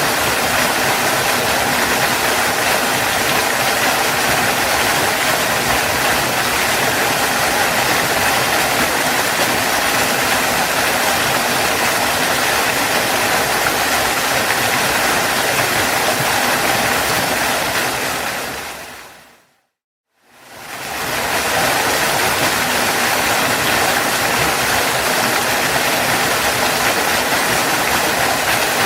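Waterfall rushing in a steady, even roar of falling water. About 18 seconds in it fades out to silence, then fades back in about two seconds later.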